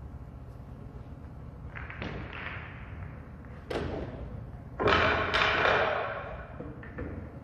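Pool balls clacking and rattling against each other as they are gathered by hand from the table's ball-return tray. There are several bouts of clatter with sharp clicks, the loudest about five seconds in.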